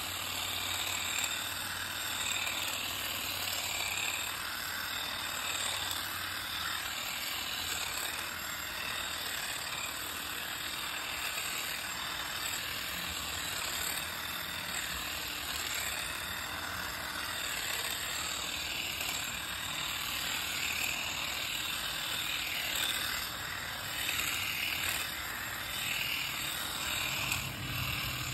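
Ryobi P2900 hedge trimmer running and cutting through a shrub, its reciprocating blades buzzing steadily with small rises and dips as they bite into the branches.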